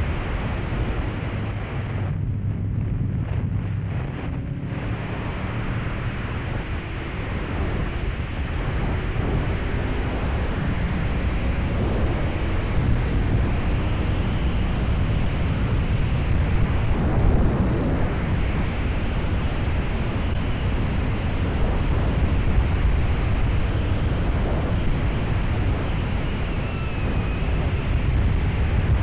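Heavy wind buffeting on an action camera's built-in microphone at riding speed, with the 1997 Honda VFR750F motorcycle's V4 engine running underneath.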